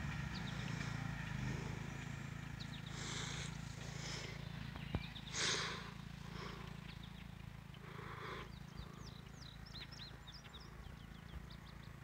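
Quiet outdoor ambience by a brook: a few short, harsh bird calls, then many quick high chirps in the second half, over a steady low hum.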